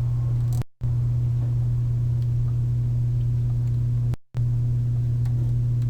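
Steady low electrical hum on the recording, one unchanging tone with a fainter overtone, cutting out to dead silence for an instant twice.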